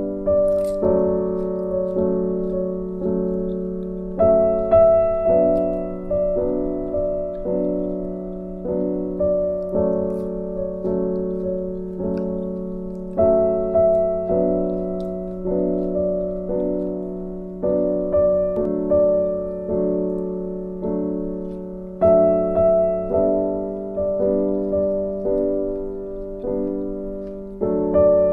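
Background piano music: a slow, gentle melody of struck notes that fade after each strike, its phrase repeating about every nine seconds.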